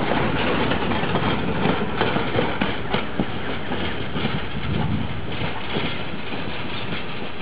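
Passenger carriages rolling past on the track: steady wheel rumble with a few sharp clacks over the rail joints around the middle, easing a little as the last carriage goes by.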